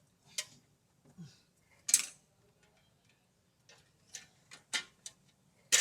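Hand tools and metal parts clinking and tapping: irregular sharp metallic clicks, the loudest about two seconds in and a quicker run of them near the end.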